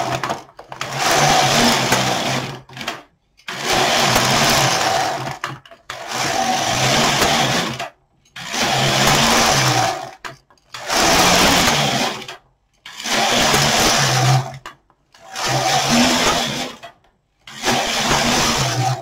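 Domestic knitting machine carriage slid back and forth across the needle bed, knitting one row per pass: about eight passes, each lasting about two seconds with a brief pause between.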